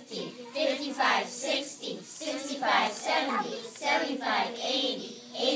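A group of children chanting a count aloud together in a sing-song rhythm.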